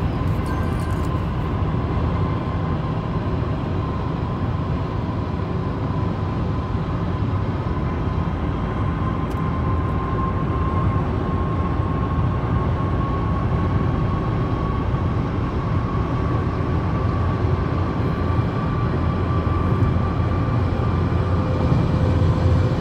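Steady highway driving noise heard from inside a moving car's cabin: a continuous low rumble of engine and tyres, with a thin steady whine that creeps slightly higher in pitch.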